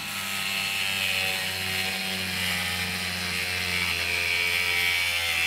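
Angle grinder with a cut-off wheel running steadily as it cuts through a radiator's metal header to remove the end tank.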